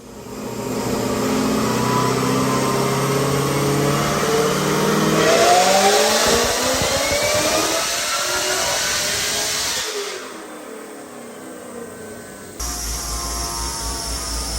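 Car engine accelerating under load, its pitch climbing steadily for about nine seconds. It then cuts abruptly to a quieter stretch, and a different engine sound follows a couple of seconds later.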